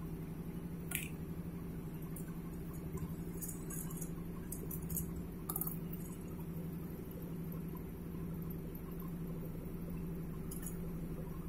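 Light metallic clicks and clinks from fingers brushing the tips of stainless-steel welding electrodes packed in a steel canister. The clicks come about a second in and in a cluster around the middle, over a steady low hum.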